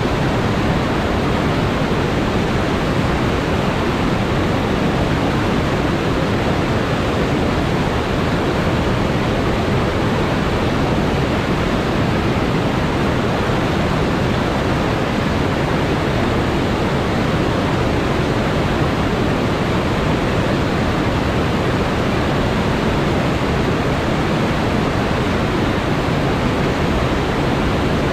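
River rapids and falls, white water pouring over rocks in a loud, steady rush.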